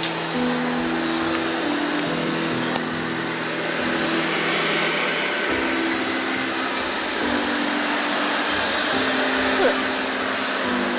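Household vacuum cleaner running steadily, a constant rushing of air with a thin high motor whine on top.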